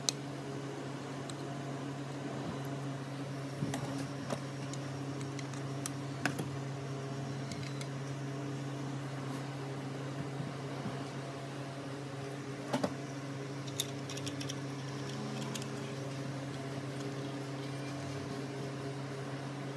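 A steady low mechanical hum, as from a fan or similar appliance, with a few light clicks and taps from small parts being handled, loudest around two-thirds of the way in.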